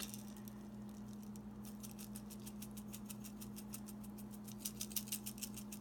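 Salt being dispensed over the food: a run of light, evenly spaced scratchy clicks, about ten a second, starting about two seconds in and stopping near the end, over a low steady electrical hum.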